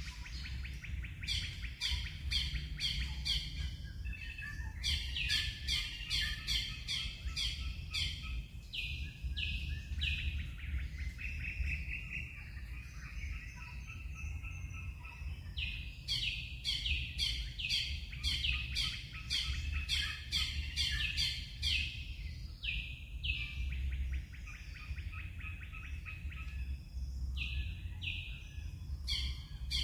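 Birds calling in runs of short, sharp, downward-sweeping notes, about three a second, coming in several bursts of a few seconds with pauses between. A steady low rumble sits under them.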